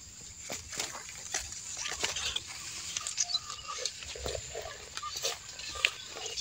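Leaves and dry stalks rustling and crackling as the phone is pushed through undergrowth, mixed with short, low animal grunts.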